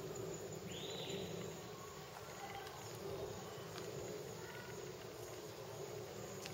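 Steady outdoor background of insects and birds, with a short high buzz about a second in.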